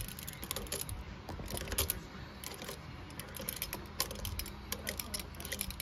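Light, irregular metallic clicks and taps of locking pliers working and turning a part on the Honda EU3000is generator's engine, a few clicks a second.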